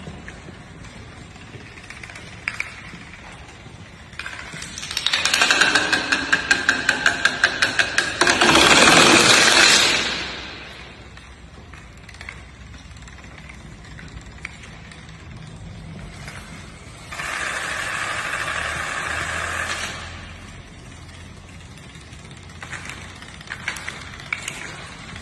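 Dominoes toppling in a long chain on a tiled floor, a rapid clatter of many small pieces. It swells about five seconds in and runs for about five seconds, comes back as a steadier run of clatter for about three seconds further on, and ends in scattered clicks near the end.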